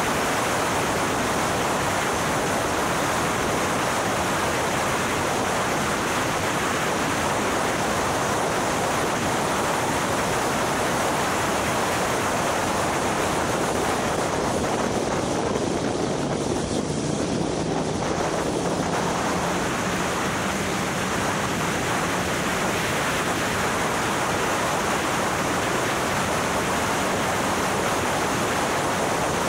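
Steady rushing wind noise over the microphone of the R300 track car at speed, drowning most of the car's sound. A faint low engine note comes through about halfway in, rising slightly before it fades.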